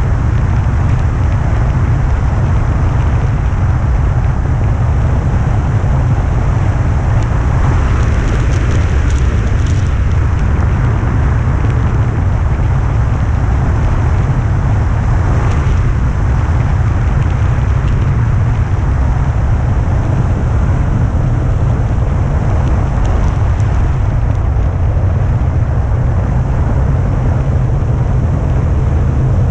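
Loud, steady wind noise from air rushing over the microphone of a camera mounted on a hang glider's wing in flight, heaviest in the low end and unbroken.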